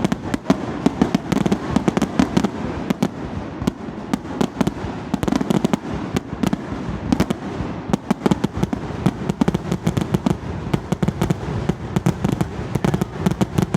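Fireworks display in a rapid, unbroken barrage of shell bursts, many sharp bangs a second over a continuous low rumble.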